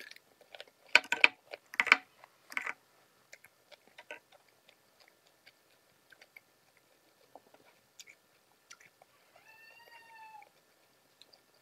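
Raw cucumber being bitten and chewed close to the microphone: a few loud crisp crunches in the first three seconds, then quieter scattered chewing clicks. About ten seconds in, a faint brief high-pitched call that rises and falls.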